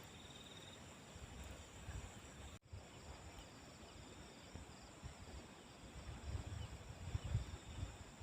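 Crickets and other night insects chirping steadily, with low wind rumble buffeting the microphone now and then, stronger near the end.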